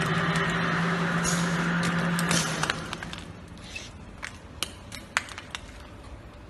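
Blister packing machine running with a steady hum that cuts off about two and a half seconds in, with sharp clicks and clinks of hard plastic egg capsules knocking together scattered throughout.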